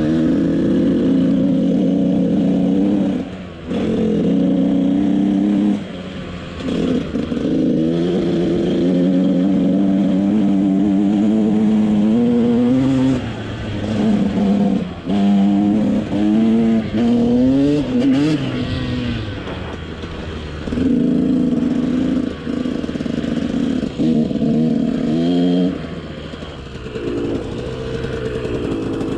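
KTM SX 125 single-cylinder two-stroke dirt bike engine being ridden, its pitch climbing and falling with the throttle. It runs steadily at first, then gives a run of short, quick revs near the middle, with brief drops where the throttle is closed.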